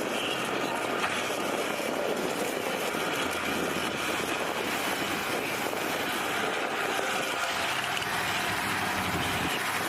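Heavy diesel engines of a bulldozer and a loaded dump truck running steadily under load as the bulldozer works to pull the bogged truck free.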